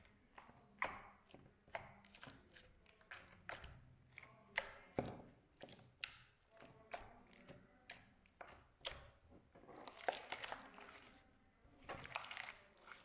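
Slime being handled: irregular sharp clicks and pops as it is pressed and stretched, with longer squelching stretches near the end.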